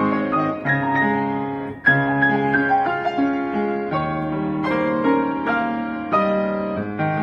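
Freshly tuned grand piano played with both hands: melody over held chords, notes ringing cleanly.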